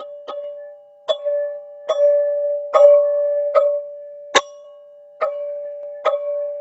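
Teal ZenTube struck in a slow, even rhythm, about one strike every 0.8 s, each strike ringing on as a sustained, bell-like tone over one steady low note. One sharper, louder strike comes a little past the middle.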